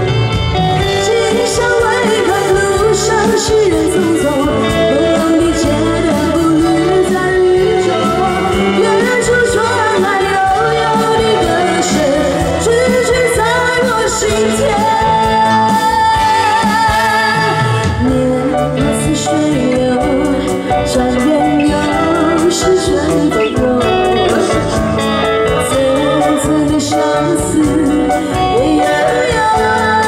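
A woman singing a Mandarin pop ballad live through a microphone and PA, with a live band accompanying her, loud and continuous.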